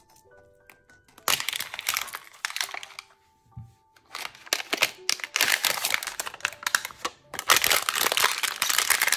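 Packaging being crinkled and torn open by hand as a layer of a toy box is unwrapped. The crinkling comes in three spells, starting about a second in.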